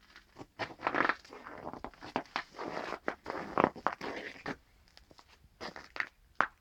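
A series of irregular crunches and rustles, some close together and some a second or so apart, tapering off near the end.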